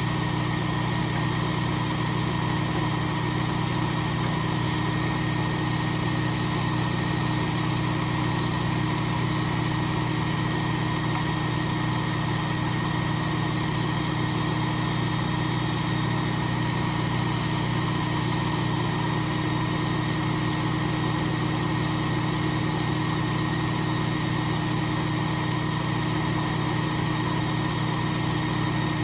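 Work Sharp Ken Onion Elite belt sharpener with the Blade Grinder attachment, running steadily with a 12,000-grit micromesh belt fitted: a constant motor hum. About six seconds in, and again about fifteen seconds in, a higher hiss comes up for a few seconds each time as the knife edge is drawn across the belt.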